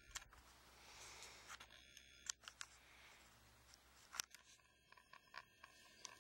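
Near silence: faint outdoor ambience with a few short, sharp clicks, the loudest about two and four seconds in.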